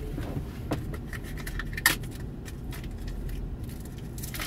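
Steady low hum of the van's engine running, heard inside the cab, with scattered small clicks and rustles of handling, one sharper click about two seconds in.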